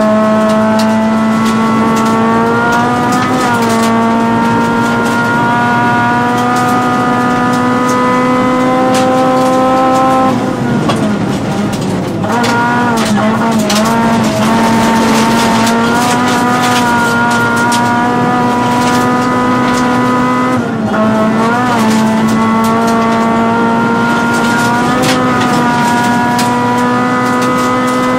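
Honda Civic Type-R rally car's four-cylinder engine heard from inside the cabin, held at high revs with the pitch climbing slowly in each gear. There are quick gear changes about three seconds in and about twenty seconds in, and the revs drop off around ten seconds in before it pulls hard again. Gravel clatters against the underside throughout.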